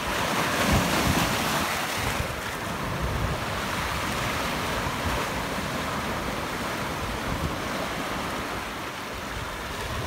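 Sea waves breaking and washing over a flat rock shelf, foaming water hissing across the rock. A louder surge comes in the first two seconds and then settles into a steady wash.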